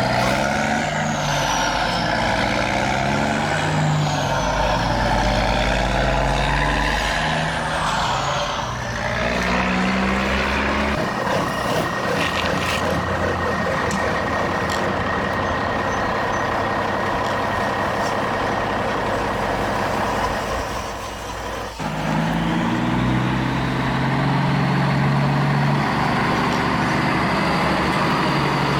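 Radio-controlled model construction trucks and excavator running, with motor and gear whine and engine-like tones that step up and down in pitch. A steady high whine holds through the middle. The sound drops briefly about three-quarters of the way through, then picks up again.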